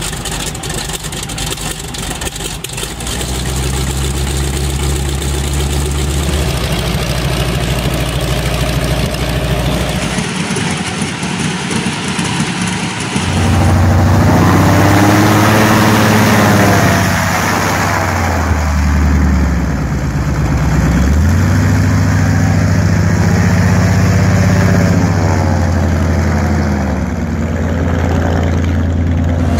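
Pratt & Whitney R-1340 Wasp nine-cylinder radial engines running with their propellers turning. The first engine runs steadily. About halfway through, a louder one on an airboat takes over, its pitch dropping and rising as the throttle is worked.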